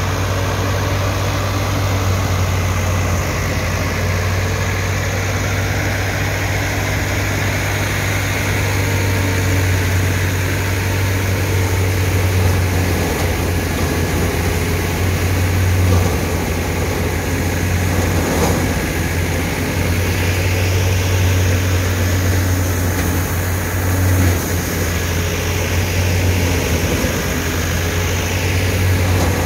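Massey Ferguson MF 385 tractor's four-cylinder diesel engine running steadily under load as it drives a wheat thresher through the PTO shaft, mixed with the thresher's whirring drum and chaff blowing out. A loud, even drone with small rises and dips in load.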